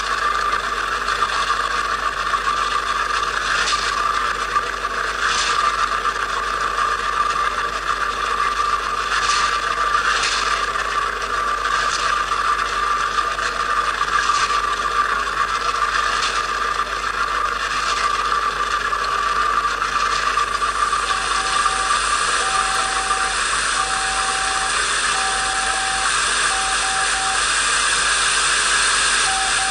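A steady hiss with a faint clicking every second or two. From about two-thirds of the way in, a steady beep sounds on and off in short and long pulses.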